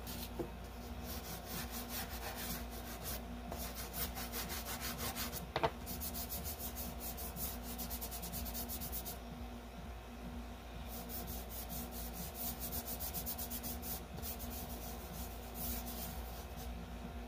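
Fingers rubbing soft chalk pastel into paper to blend it, a dry scratchy rubbing in bouts of quick back-and-forth strokes with short pauses between them.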